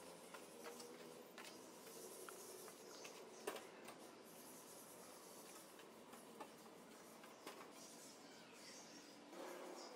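Near silence: faint background ambience with a few light taps and clicks, the sharpest about three and a half seconds in.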